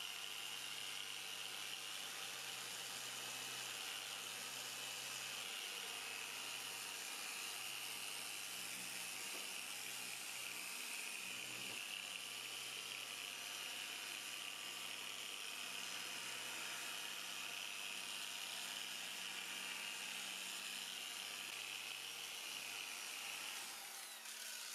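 Small random-orbital sander with an orange pad running against a plastic headlight lens, a steady high whine over the hiss of the pad on the frosted surface, winding down at the very end.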